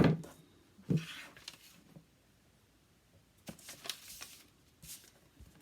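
Paper trimmer and cardstock being handled: a sharp click right at the start and another knock about a second in, then short rustling, sliding sounds of paper a few seconds later.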